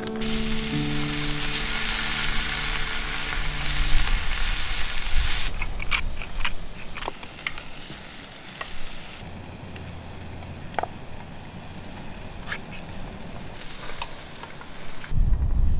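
Fish fillets sizzling on a hot grill pan, loudest for the first several seconds and then a quieter steady frying with scattered clicks of a wooden spoon stirring vegetables in the pan. A low rumble comes in near the end.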